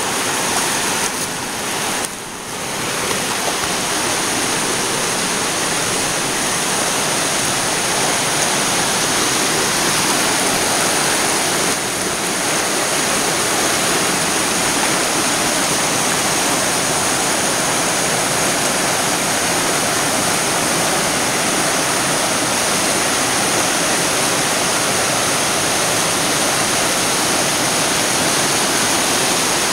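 Creek rushing over rocks and boulders in a steady, loud rush of whitewater, briefly quieter about two seconds in.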